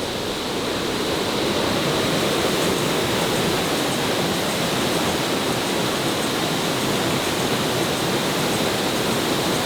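Waterfall's falling water, a steady dense rush that grows a little louder over the first couple of seconds and then holds even.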